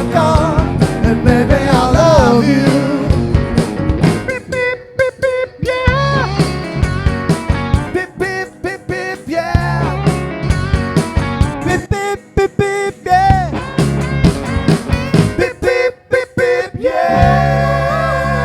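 Rock music with a singing voice over guitar and bass. About seventeen seconds in the voice stops and a held guitar chord rings on.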